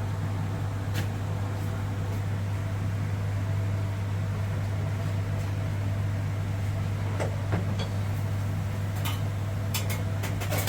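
A steady low machine hum, with a few sharp clicks and knocks near the end.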